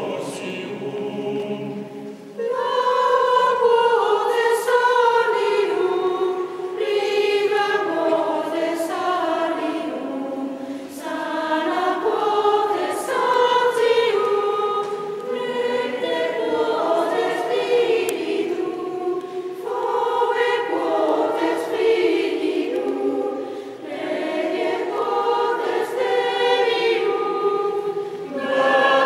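Mixed choir of men's and women's voices singing together in sustained phrases, with short breaks between phrases.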